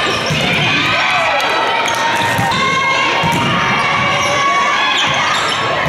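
Indoor court game in a large convention hall: many voices calling and shouting over one another, with repeated ball thumps on the floor.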